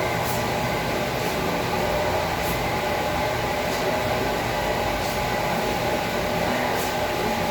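Steady mechanical drone with a constant hum, like a running machine or a vehicle heard from inside, with faint hissy strokes about once a second.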